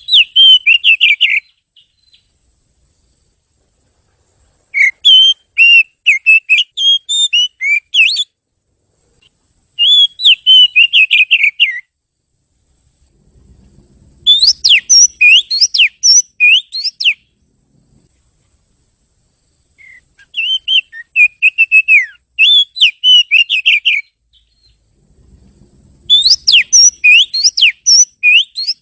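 Oriental magpie-robin (kacer) singing: phrases of rapid, clear whistled notes and slides, each a few seconds long and separated by short pauses, about six phrases in all.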